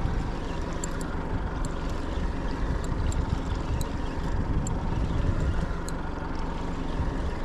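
Boat's outboard motor running steadily at trolling speed, with scattered faint high ticks over it.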